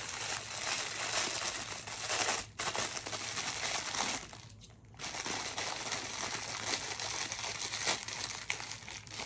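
Clear plastic packaging bag crinkling as it is handled and opened, with a brief break about two and a half seconds in and a quieter stretch around four to five seconds.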